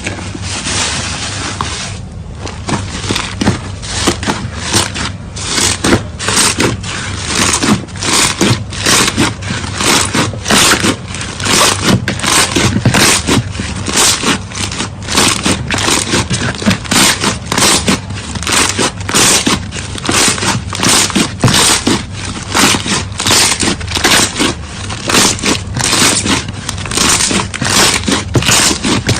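Slime being squeezed and pressed by hand: a quick run of short, noisy squishing strokes, about two a second.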